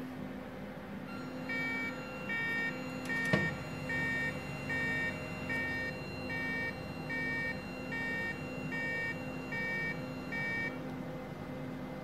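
INFICON Ecotec E3000 leak detector sounding its warning alarm: about a dozen short two-tone beeps, a little under a second apart, over a steady hum from the running unit. The beeping goes with Warning 17, a sign that the diaphragm pump's maintenance interval has elapsed and its membrane is due for replacement. A single sharp knock comes about three seconds in.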